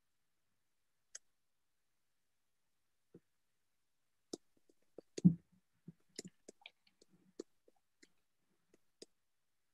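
Scattered small clicks and taps picked up by a computer call's microphone, with one louder knock about five seconds in and dead silence between them.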